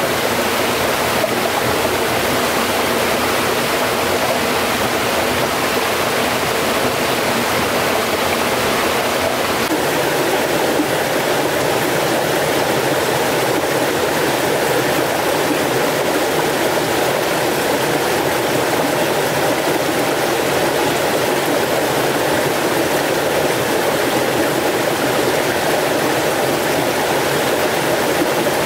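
A forest stream flowing: a steady, unbroken rush of water.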